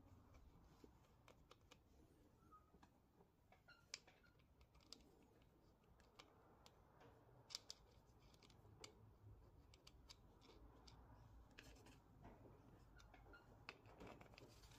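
Near silence with faint, scattered clicks and taps of hands handling an MDF board and a small screw.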